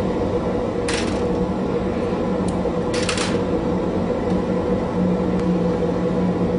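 Steady rushing hum of a glassworking torch and bench, with two short hissing bursts at about one and three seconds in.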